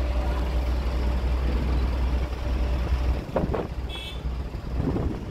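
Diesel engine of an Escorts Hydra mobile crane running with a low rumble that drops away about three seconds in. A short high beep sounds about four seconds in.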